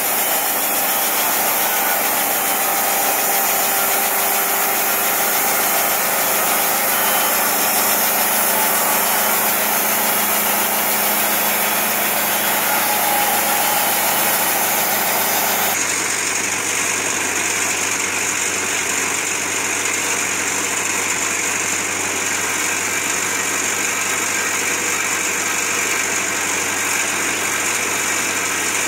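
Wood-Mizer sawmill's band saw cutting through a log, driven by its Kubota diesel engine: a loud, steady run. About halfway through the sound changes abruptly to the diesel engine running steadily on its own.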